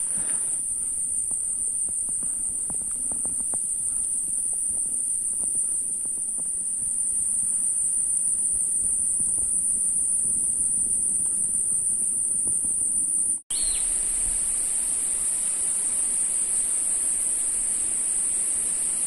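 A steady, high-pitched drone of insects, unbroken except for a momentary dropout about thirteen seconds in.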